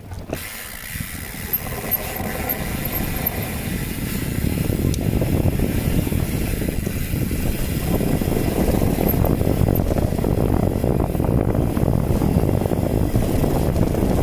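Wind buffeting the microphone and tyres rolling over a rough trail as a bicycle gets under way, the noise building over the first several seconds as it gathers speed and then holding steady.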